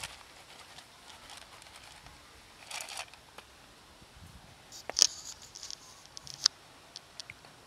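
A cat crunching dry kibble from a plastic tub: a scatter of sharp clicks, the loudest about five seconds in. There is a short rustle about three seconds in.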